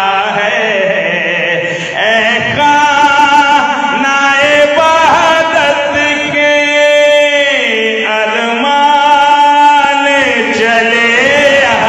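Solo man chanting a qasida into a microphone over loudspeakers, holding long, wavering notes that slide down at the ends of phrases.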